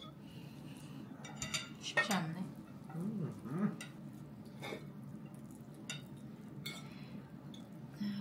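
Knives and forks clinking and scraping on ceramic plates as grilled meat is cut, in scattered short clicks. A brief vocal sound from one of the diners comes about two seconds in.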